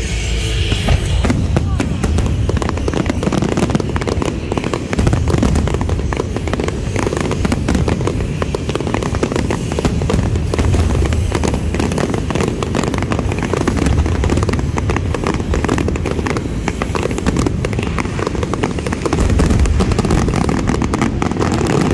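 Aerial firework shells bursting in a dense, unbroken barrage, with many overlapping bangs and deep booms.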